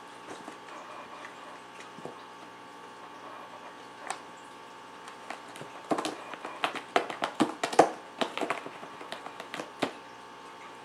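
A cat's new toy being batted about: a few light taps, then a quick run of sharp clicks and knocks in the second half. A steady hum runs underneath.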